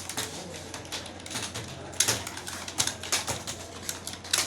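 Typing on a computer keyboard: irregular clicking keystrokes, about three or four a second, some sharper and louder than others.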